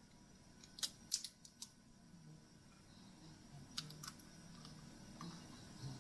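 A few faint, sharp clicks and taps: a cluster of four or five about a second in, then two more about four seconds in.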